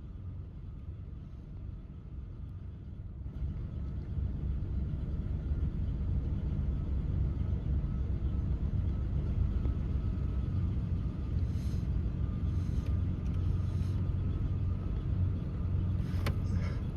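A steady low rumble, like a running engine or machinery, that gets louder about three seconds in. A few brief faint clicks or rustles come in the second half.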